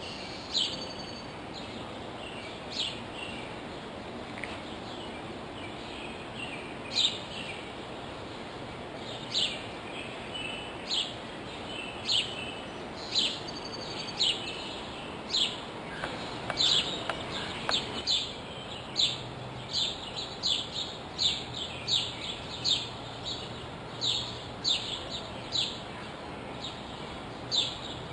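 A bird repeating a short, high chirp that sweeps downward in pitch, at first every second or two, then faster, about twice a second, through the second half. A steady hiss of outdoor background noise runs underneath.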